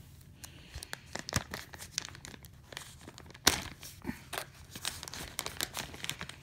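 Paper envelope and thin plastic bag being torn open and crinkled by hand: a quick, irregular run of crackles with one sharp, loud crack about three and a half seconds in.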